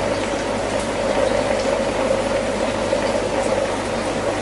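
Aquarium water bubbling steadily as air from a sponge filter and an air stone breaks the surface, over a steady low hum.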